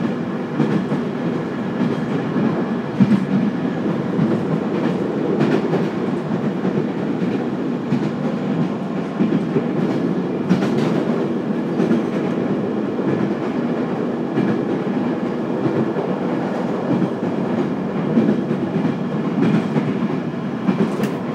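Inside the cabin of a JR Kyushu 815 series electric train under way: a steady rumble of wheels on rail, with a few sharp clicks from the track scattered through it.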